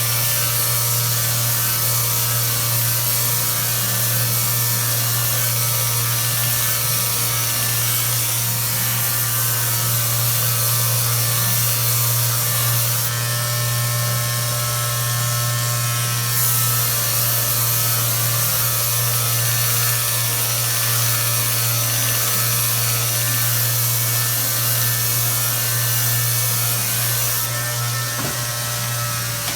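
A crankshaft polishing machine runs steadily, with a constant low hum under an even abrasive hiss as the crank is polished.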